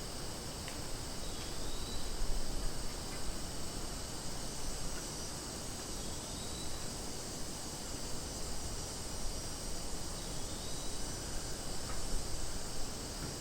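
Cicadas buzzing in a steady, continuous high drone, with a few faint short chirps over it.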